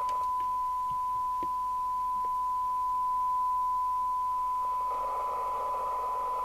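Steady 1 kHz test tone received and demodulated by an FM CB radio receiver under a 12 dB SINAD sensitivity test, with hiss behind it; the hiss grows louder about five seconds in. A few faint clicks.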